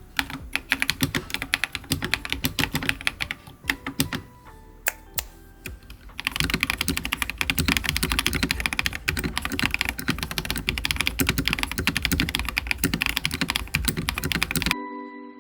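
Typing on a GMK67 custom mechanical keyboard with prelubed CIY Sakura switches, PBT keycaps and PE foam: separate keystrokes at first, then fast continuous typing from about six seconds in. The typing stops abruptly near the end, and a few ringing chime-like notes take over.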